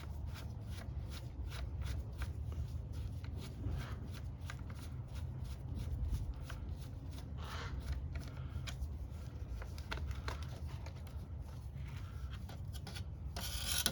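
Hand work on a motorcycle headlight: a run of small clicks, taps and scrapes of a screwdriver and metal parts as the headlight ring's Phillips screw is undone and the ring is lifted off. Under it runs a low steady hum.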